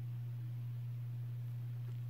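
A steady low hum, unchanging throughout, with a faint click near the end.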